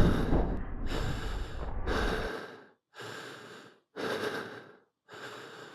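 A person breathing heavily, a breath about once a second with short silent gaps between, while a low rumble fades out over the first two seconds.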